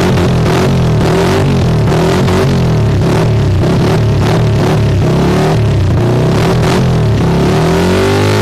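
Kawasaki CT100 motorcycle engine revving through an aftermarket DBS exhaust pipe, its pitch rising and falling repeatedly as the throttle is blipped and held.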